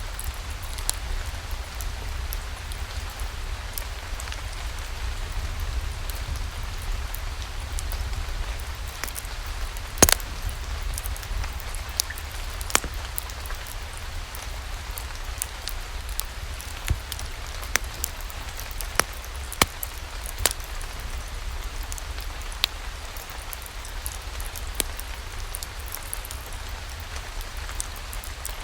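Steady rain hiss over a deep low rumble, with scattered sharp pops, about a dozen, like a crackling wood fire.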